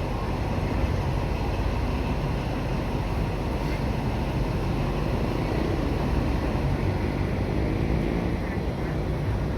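Steady low rumble of a moving vehicle, with faint voices in the background.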